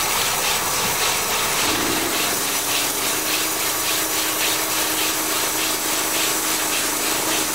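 A band sawmill cutting through a log: a steady hiss from the blade with a regular pulse about three times a second, and a steady hum that comes in about two seconds in.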